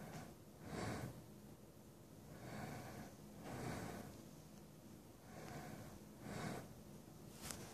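Soft, rhythmic breathing close to the microphone, a breath every second or two, over a steady low rumble.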